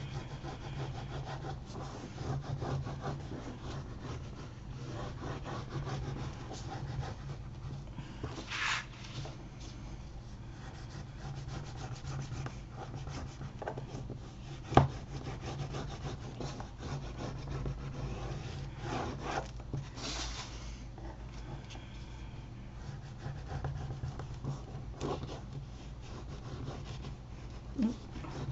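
Bone folder rubbing and scraping along paper edges, creasing them down against the card, in repeated strokes with a few louder scrapes. A single sharp tap about halfway through, over a low steady hum.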